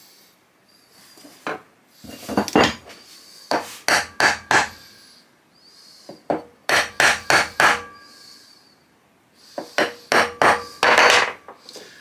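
Hammer taps on a wooden block, in several bursts of quick sharp knocks, driving a tight-fitting extractor into place on a Carcano rifle bolt.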